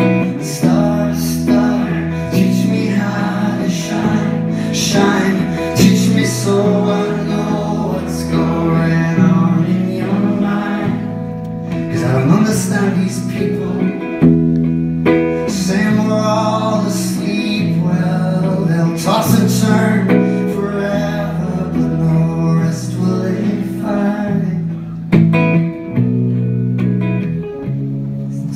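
Live band music: a strummed hollow-body electric guitar over bass, with a male voice singing at the microphone.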